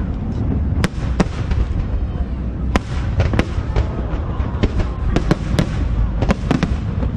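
Fireworks display: a dozen or so sharp cracks from bursting shells, irregularly spaced, over a continuous low rumble of booms.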